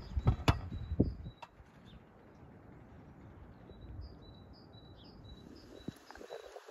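A block of cheese grated on a metal box grater, a few quick rasping strokes in the first second or so, while a small bird chirps over and over. Near the end a spatula starts stirring food in a frying pan.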